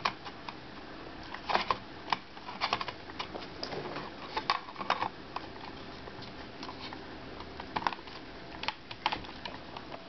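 Irregular plastic clicks and taps from the NorhTec Gecko Edubook netbook's bottom cover being pressed and snapped back into place by hand.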